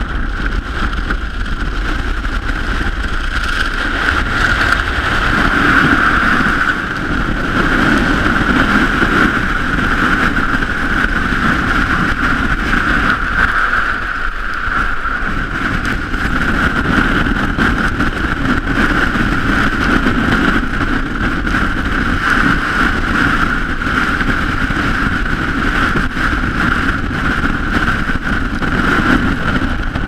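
High-mountain wind blasting across the camera's microphone: a loud, continuous rushing that swells and eases a little in gusts.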